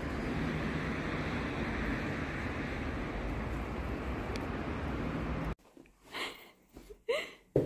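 Steady outdoor street noise while walking on a pavement, cut off abruptly about five and a half seconds in. Then a few short sounds in a quiet room, the last two rising in pitch.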